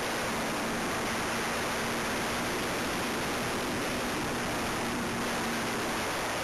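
Steady rushing wind noise on the onboard camera's microphone of a Super Cub aircraft in flight, with a faint hum from its motor underneath.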